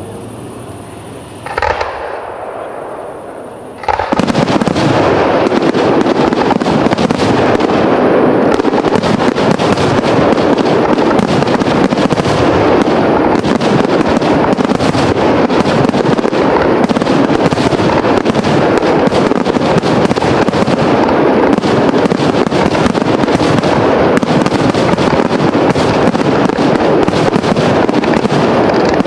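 Fireworks display: after a lull broken by one bang, a dense barrage of shell bursts starts about four seconds in. The bursts follow as rapid, overlapping bangs without a break.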